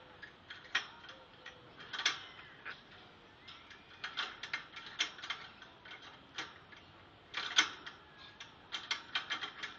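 Irregular metallic clicks and rattles of a cage lock being picked and worked by a bird's beak as it tries to undo it.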